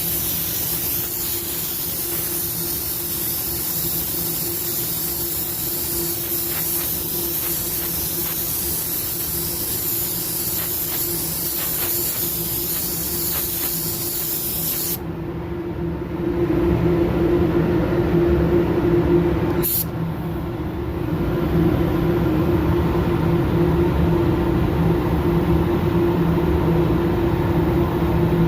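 Air spray gun hissing steadily, then cutting off suddenly about halfway through. A steady low machine hum runs underneath and gets louder once the spraying stops, with a single sharp click soon after.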